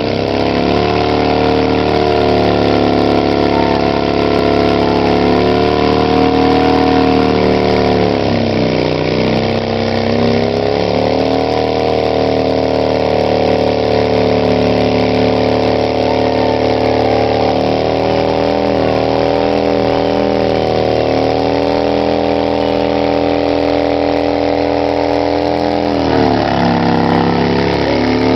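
A 2008 Harley-Davidson V-twin engine is held at high revs in a burnout, with the rear tyre spinning against the ground. The revs sag and climb back about eight seconds in and again near the end.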